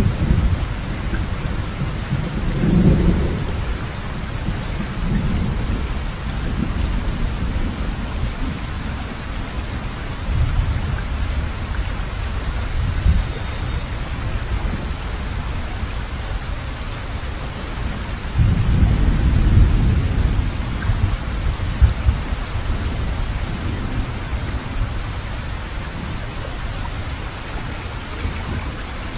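Steady rain falling, with rolling thunder rumbling low about two to four seconds in and again, longer and louder, a little past the middle.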